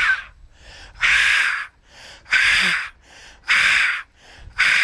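A man forcefully huffing out breath right at a handheld microphone, a run of hard, hissy exhalations about one every second and a bit.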